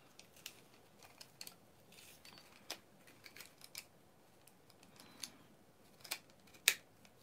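Plastic parts and joints of a Transformers F-14 Tomcat action figure clicking and snapping as they are handled and folded into place: scattered small sharp clicks, the loudest near the end.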